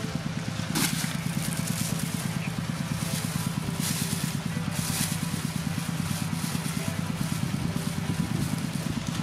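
A small engine idling steadily with a fast, even pulse. A clear plastic bag rustles briefly a few times over it.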